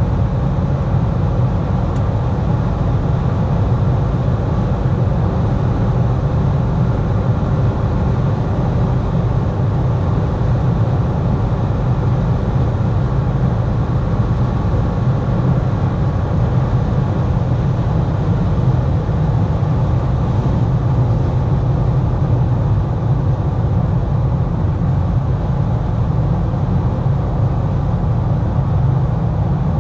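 Steady in-cabin noise of a Mercedes-Benz GLA 200 cruising at about 180–200 km/h: a deep, even rumble of road and wind noise with a faint engine hum underneath.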